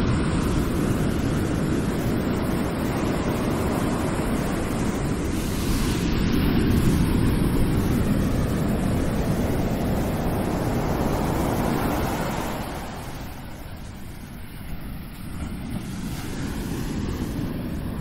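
Ocean waves washing and surging in a steady rush, swelling about six seconds in and easing off a little past halfway before building again near the end.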